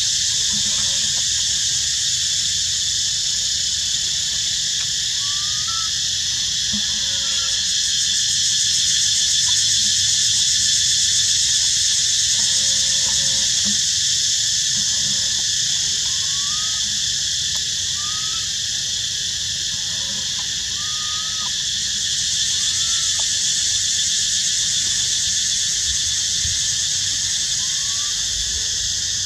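Loud, steady, high-pitched drone of forest insects, with short faint chirping calls every second or two.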